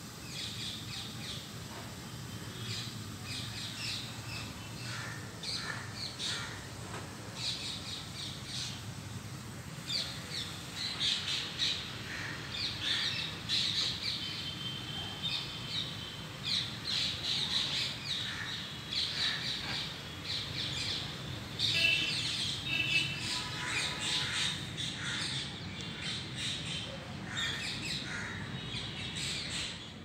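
Birds chirping and squawking, many short calls overlapping throughout, over a low steady background rumble.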